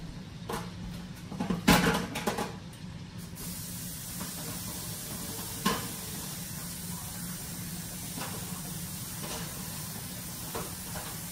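Cabbage and bacon in bacon grease frying in a pot on the stove, giving a steady sizzling hiss that gets fuller about three seconds in. There is a clatter of kitchen items about two seconds in and a single knock a little past halfway.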